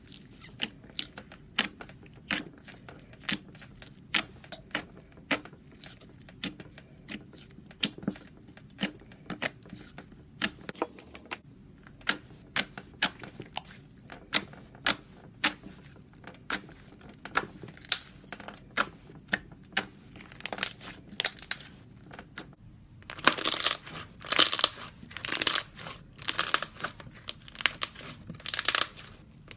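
Slime being played with, making sharp clicks and pops about once or twice a second, which turn into denser, longer crackling bursts for the last few seconds.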